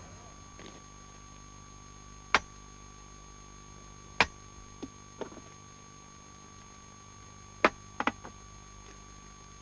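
About half a dozen sharp knocks or clicks at uneven intervals, three of them close together near the end, over a faint steady hum.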